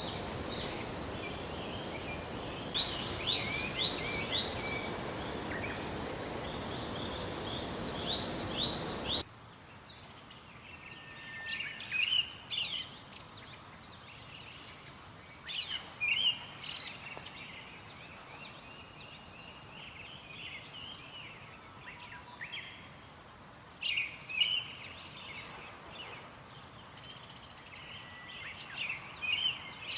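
Pale thrush singing a soft twittering song of quick, thin notes that sweep up and down. A cut about nine seconds in joins two recordings; the second has much less background hiss.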